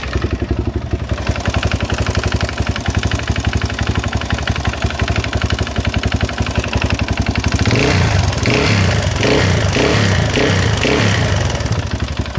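Suzuki LTZ 400 quad's single-cylinder four-stroke engine idling, then given a run of short throttle blips from about 8 s in before settling back to idle. It carries the valve noise that the owner puts down to worn valves.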